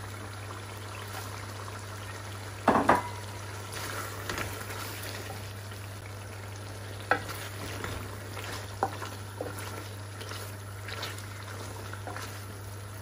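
Chicken karahi sizzling as it fries in an aluminium karahi while a wooden spoon stirs it, with a steady low hum underneath. There is a loud knock about three seconds in and a few sharp clicks of the spoon later on.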